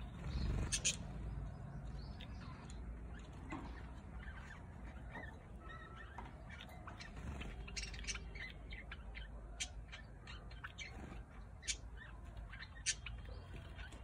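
Budgerigars giving short, scattered chirps, with a few sharp clicks among them.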